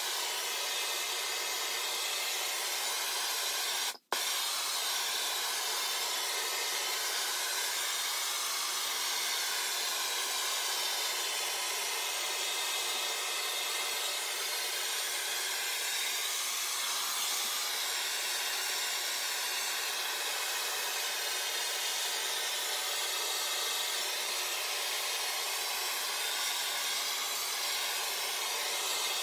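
Handheld gas torch burning with a steady hiss as its flame is played along a muzzleloader barrel to heat it for plum-brown browning. The sound cuts out for an instant about four seconds in.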